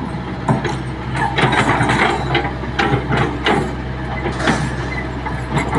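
Hitachi Zaxis 110 excavator's diesel engine running steadily, with irregular clanks and scrapes from the bucket working loose red soil.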